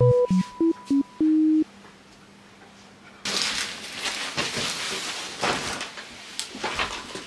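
A quick run of electronic beeps at changing pitches in the first second and a half. After a short pause comes rustling and scraping of cardboard packaging as a folding table is slid out of its box.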